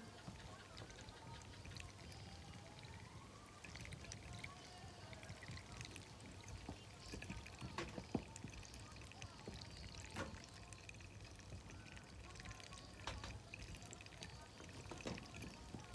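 Ducklings feeding, their bills giving scattered sharp taps and dabbling sounds against the feed and floor, with faint soft calls.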